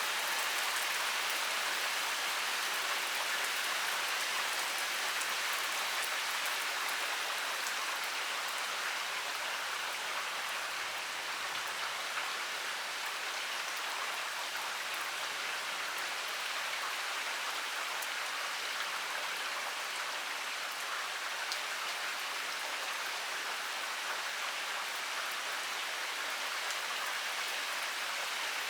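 Heavy rain pouring steadily, a dense even hiss of rain on surfaces with fine individual drop ticks.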